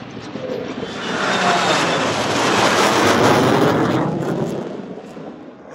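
Heritage flight formation of military jets (F-22 Raptor, F-35 Lightning II, A-10) flying with a P-51 Mustang, passing overhead: the jets' roar builds from about a second in, peaks in the middle and fades away near the end.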